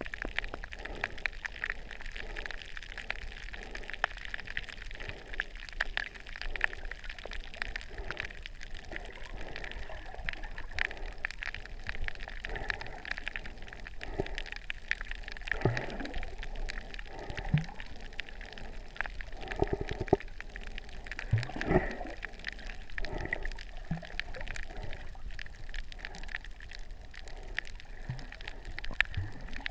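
Underwater sound over a rocky reef: a steady crackle of fine clicks, with bubbling gurgles now and then, mostly toward the middle.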